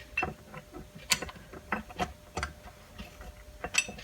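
Irregular light metal clicks and taps as a bolt is fitted through the belt table's mounting hole on a bench belt sander under hand assembly; the sander is not running.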